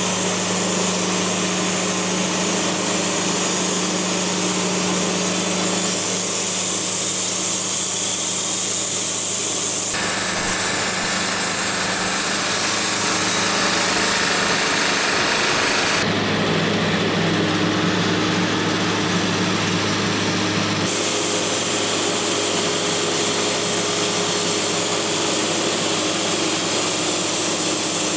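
Wood-Mizer LT70 portable band sawmill running, its engine humming steadily while the band blade cuts slowly through a poplar log; the blade is dull. The sound changes abruptly several times.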